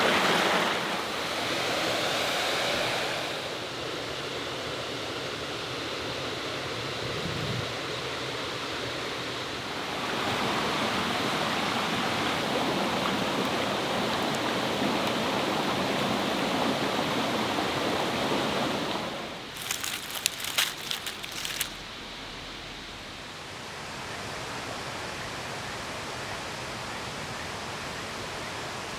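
Mountain stream rushing over rocks, its level shifting as the shots change. About two-thirds of the way through, the water drops away to a quieter background and a short run of sharp crackling clicks lasts about two seconds.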